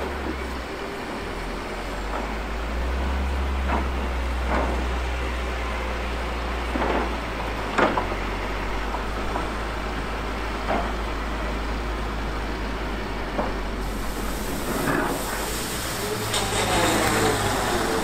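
A heavy snow-clearing machine's diesel engine running steadily, with a scatter of sharp knocks and clanks, the loudest about eight seconds in, and a brief squeal near the end.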